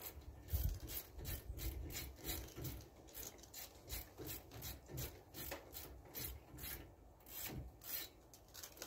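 Socket ratchet clicking in quick repeated strokes, about three a second, as a brake caliper bolt is backed out.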